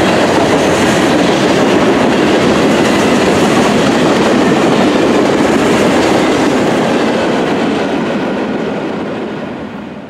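Norfolk Southern freight train's cars, covered hoppers and boxcars, rolling past close by: a steady noise of steel wheels on the rails that fades out over the last few seconds.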